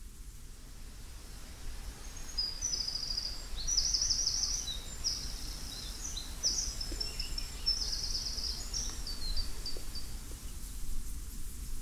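A small songbird singing a series of high, rapid trilled phrases from about two seconds in until near the end, over a steady low outdoor rumble.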